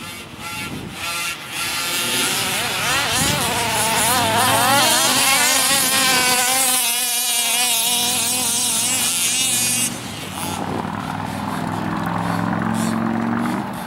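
Two-stroke gas engines of 1/5-scale radio-controlled buggies (HPI Baja 5B type) revving up and down as the cars race, the pitch wavering quickly. About ten seconds in they drop back to a lower, steadier drone.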